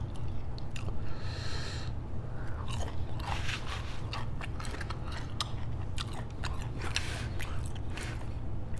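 Close-miked chewing of a mouthful of fried chicken: wet smacking and crunching mouth sounds with many quick clicks, over a steady low hum.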